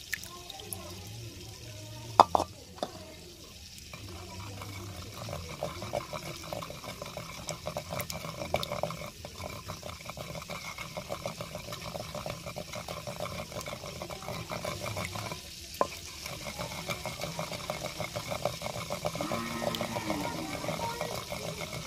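Wooden pestle grinding and stirring a wet green herb-and-yogurt paste in a stone mortar: a fast, continuous run of wet scraping strokes. A sharp knock about two seconds in.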